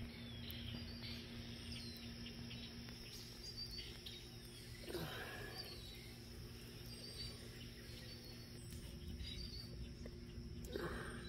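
Outdoor garden ambience: small birds chirping now and then over a steady low hum and rumble, with two brief louder sounds, about five seconds in and near the end.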